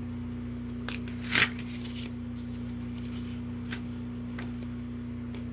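Plastic DVD case and its paper insert being handled: a short rustle as the insert is pulled out about a second and a half in, and a few light clicks, over a steady low hum.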